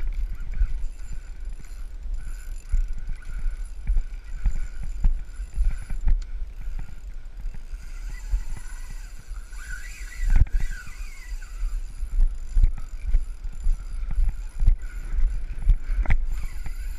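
Wind rumbling on a body-worn camera's microphone. Frequent knocks and rubs come from the camera and fishing rod being handled while a hooked fish is played.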